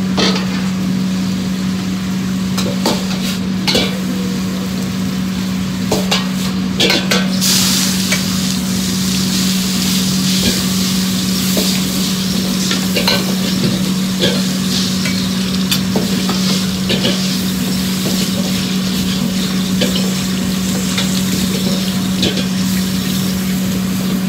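A ladle stirring and scraping in a hot wok, with many short clanks and scrapes of metal on the wok and frying sizzle that grows louder about seven seconds in. A steady low hum runs underneath.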